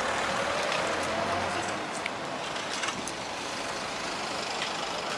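Road traffic: vehicles running and passing on the road, with an engine's low hum in the first couple of seconds and a few light clicks.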